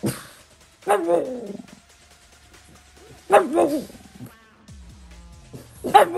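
Pug barking in short bursts: a bark about a second in that trails off, two quick barks a little after three seconds, and another near the end.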